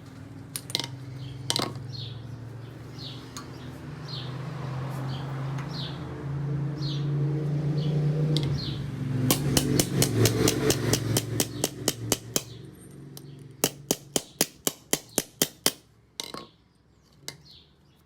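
Metal taps and hammer blows on a small steel tube being bent to shape: a quick run of taps, then about ten sharp strikes in a row near the end. Under it is a steady low hum, with short chirps repeating above.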